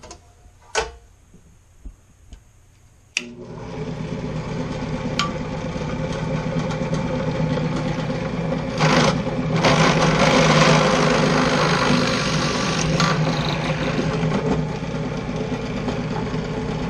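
A few light knocks, then a ZJ4110 benchtop drill press's electric motor starts suddenly about three seconds in and runs with a steady hum. Midway the bit bores into a block of wood for a few seconds, making a louder, rougher cutting noise over the hum.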